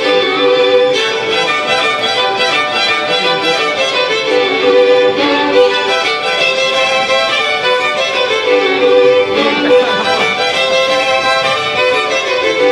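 Mariachi violin section of three violins playing a melody together with no other instruments, the first, second and third violins each taking its own part.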